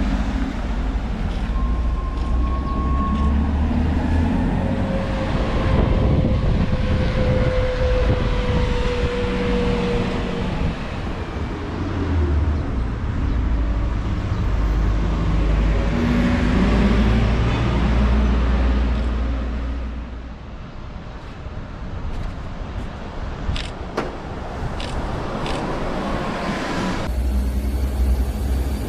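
City buses running on natural gas (CNG) drive past and climb a steep road one after another, their engines running with a low rumble. A faint whine slowly falls in pitch several seconds in. The sound changes abruptly twice as a different bus passes.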